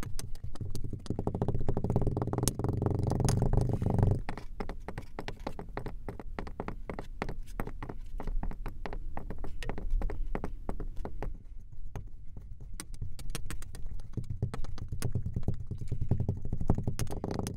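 Kinetic sand in a glass crunching and crackling as a wooden tool presses and cuts through it: a dense run of tiny clicks, with a low rumble under it for the first four seconds and again near the end.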